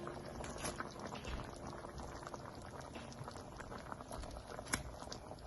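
Cream-based Alfredo sauce simmering in a pan, with a steady bubbling and many small pops scattered throughout.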